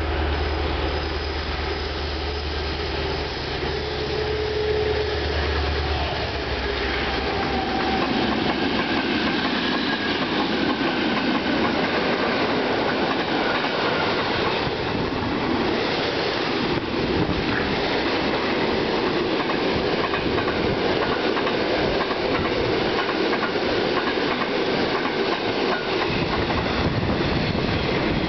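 Two NOHAB diesel-electric locomotives (DSB MY and MX class) passing with a low engine drone for about the first seven seconds. After that comes a steady rumble and wheel clatter as a long string of track-renewal machines and freight wagons rolls by.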